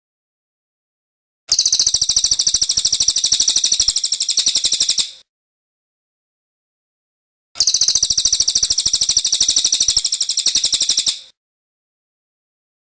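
Small songbird giving a loud, rapid, evenly pulsed high trill in two bursts of about three and a half seconds each, with a silent gap of about two seconds between them.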